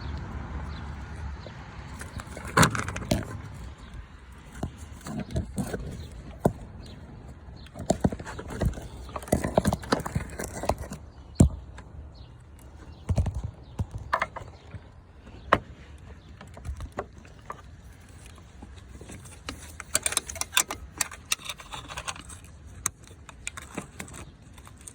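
Irregular metallic clicks, taps and clinks of a tool working on a removed car hood latch, bending its small stainless steel tab, with quick clusters of clicks about a third of the way in and again near the end.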